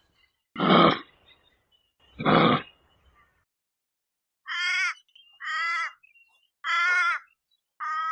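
Animal sounds: two loud breathy snorts, then four short harsh calls about a second apart.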